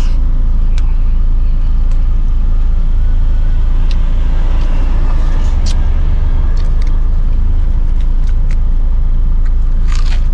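Car engine running with a steady low rumble, and a few scattered crunches of bites into crispy, freshly fried chicken-leg skin.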